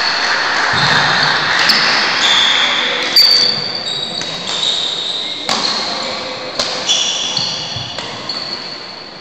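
A badminton rally on a wooden indoor court: shoes squeal high and long on the floor as the players move, and sharp racket hits on the shuttlecock come every second or so, echoing in a large hall.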